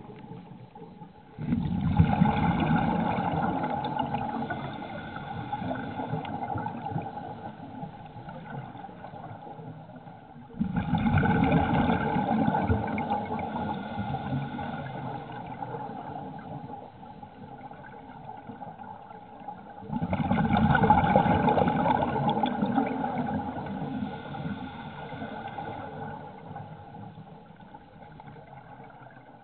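Scuba regulator exhalations heard underwater: three bursts of bubbling, about ten seconds apart, each starting suddenly and fading away. A faint steady hum runs underneath.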